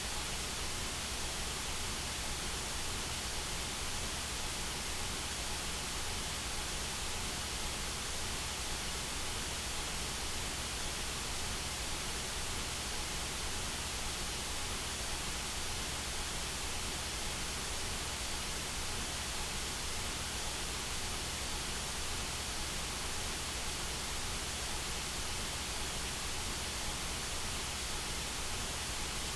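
White noise: a steady, even hiss across all frequencies, with no change or events.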